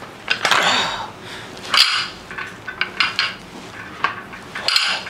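Metal weight plates of a pair of adjustable dumbbells clinking and rattling as the dumbbells are lifted off their stands and pressed, in a series of irregular clanks.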